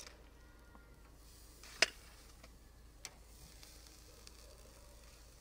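Sausages being laid on the wire grate of a portable charcoal grill: a sharp click about two seconds in and a lighter one a second later, over faint sizzling.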